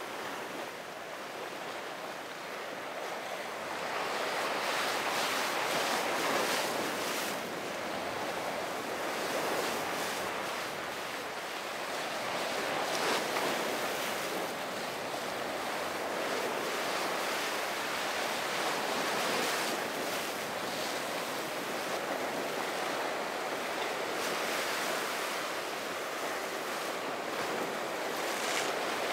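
Ocean surf washing and breaking, swelling and easing every few seconds, with wind buffeting the microphone.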